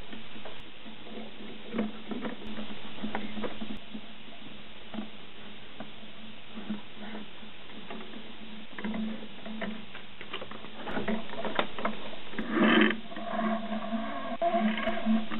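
Scattered small clicks and taps of metal rods, bolts and plastic brackets being handled while the Y-axis of a Prusa i3 3D printer is assembled, over a steady low hum and hiss. A louder knock comes near the end, followed by a short squeak.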